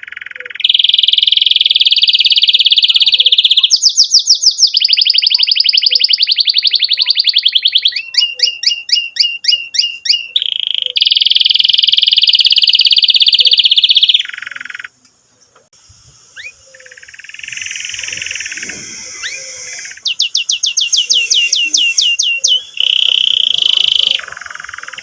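Domestic canary singing loudly in long rolling trills and runs of rapid repeated chirping notes, with a short pause about two-thirds of the way through.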